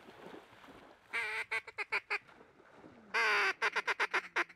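Loud mallard hen quacking, twice: each bout is a long quack followed by a run of shorter quacks falling in pitch, the first about a second in and the second about three seconds in.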